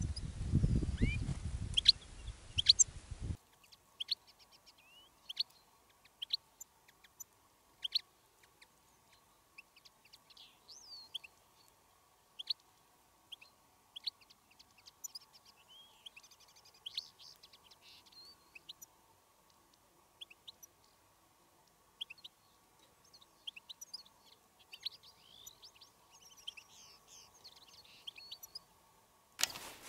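European goldfinches calling: scattered short, high chirps with brief bursts of twittering. A low rumble lies under the louder first few seconds, and a faint steady tone runs beneath the calls after that.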